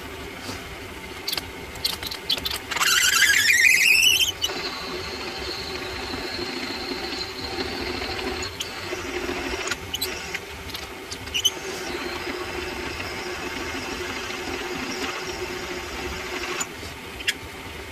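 Twist drill in a mini lathe's tailstock chuck, drilling into a spinning workpiece. It gives a loud squeal that rises in pitch about three seconds in, then a thinner, steady high squeal through most of the rest, over the steady hum of the running lathe, with a few clicks. The squeal comes from the bit cutting with too little cutting fluid, which the machinist means to cure with more transmission fluid.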